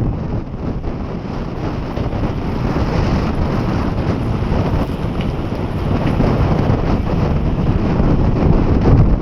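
Wind buffeting the microphone, a steady heavy rumble with no break.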